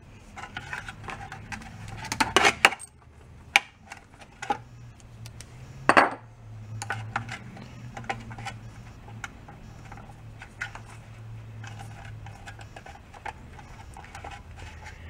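Clinks and clatter of a lawn mower carburetor and small metal tools handled in a stainless steel parts tray as the carburetor is taken apart by hand. There are scattered light clicks, with louder clanks about two and a half seconds in and again at six seconds, over a low steady hum.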